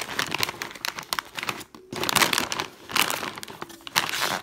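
Plastic food packets and a snack bag crinkling as they are handled and lifted out of a cardboard box, in several bursts.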